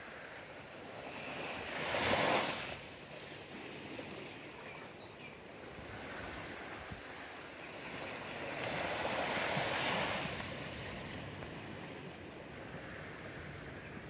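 Small waves from a calm sea washing onto a sandy shore: one sharper wash about two seconds in and a longer, softer one towards the end.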